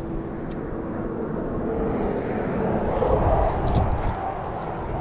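Steady drone of distant motor traffic with a faint hum, swelling slightly about three seconds in and easing off again, with a few light ticks.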